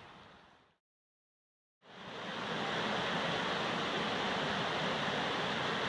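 A small stream's faint flow fades out, then after about a second of silence the steady rush of whitewater rapids fades in and holds.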